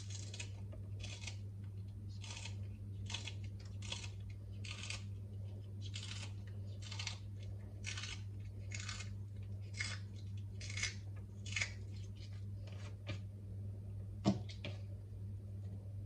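Kitchen scissors snipping fresh chives, a short crisp snip roughly every half second to a second, on and on, with one sharper knock near the end.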